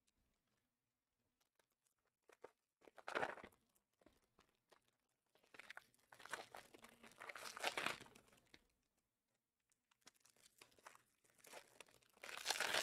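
Trading-card pack wrappers crinkling and tearing in a few short, faint bursts: one about three seconds in, a longer stretch in the middle, and another near the end.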